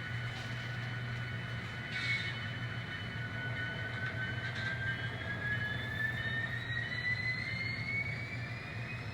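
N scale NS SD70ACe model locomotive running on the layout: a steady low hum with a thin whine that slowly rises in pitch over the second half as it picks up speed.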